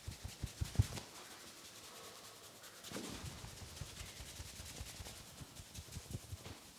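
Hands working on a person's head in a massage: a quick run of soft pats, about six a second, for the first second, then hands rubbing over hair and scalp, with lighter pats again later on.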